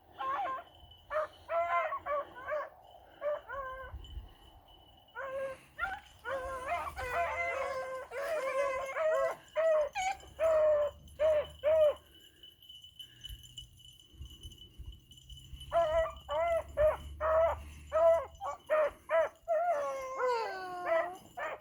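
A pack of beagles baying as they run a rabbit track, in quick bursts of short, choppy barks. They go quiet for about three seconds just past the middle, then pick up again. Near the end comes a long drawn-out bawl that falls in pitch.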